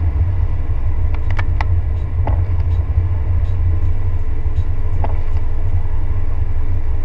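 Steady low rumble of a car driving on a wet road, heard from inside the cabin. A few faint ticks come through about one to two and a half seconds in and again about five seconds in.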